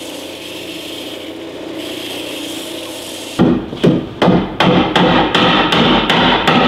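Belt sander running steadily as a cedar armrest piece is sanded. About three and a half seconds in, it gives way to a quick run of hammer blows on the cedar bench frame, about three a second and louder than the sander.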